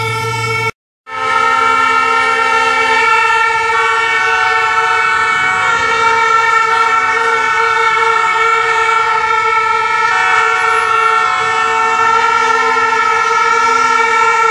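A crowd of protesters blowing handheld plastic horns, a dense chorus of long, steady, overlapping horn notes that start and stop at different times, broken by a brief cut about a second in.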